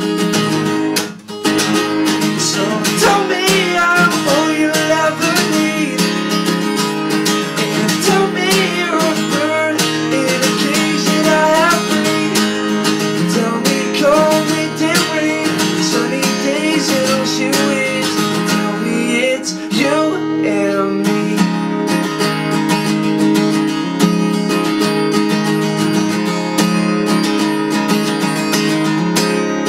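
Acoustic guitar strummed steadily, with a man singing over it for roughly the first twenty seconds; after that the guitar carries on alone.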